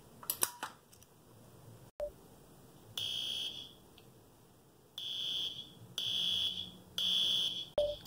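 A few light clicks as the Simplex pull station's handle is pulled down, then the fire alarm sounding: a high beeping tone in four pulses, the last three about a second apart.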